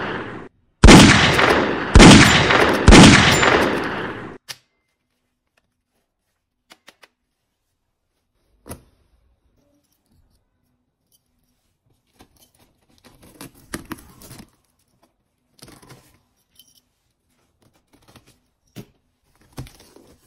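Three loud gunshot sounds about a second apart, each sharp at the start with a long echoing decay, over the first few seconds. After that, only faint scattered clicks and rustling as a taped cardboard box is cut and opened.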